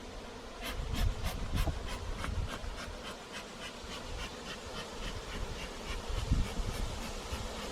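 A swarm of European honey bees buzzing steadily. About a second in, a run of quick ticks starts and fades out over several seconds, and there are low thumps at the microphone.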